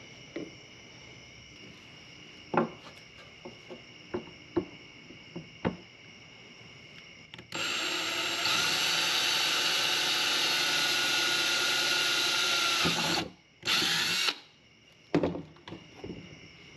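Ryobi cordless drill boring a hole through a PVC pipe cap. It runs steadily for about five seconds with a steady whine, stops, then gives one short second burst. A few sharp knocks come before it.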